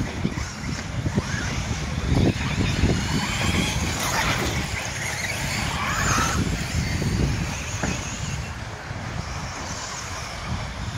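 Radio-controlled truggies racing round a dirt track, their motors whining up and down in pitch as the cars accelerate, brake and pass.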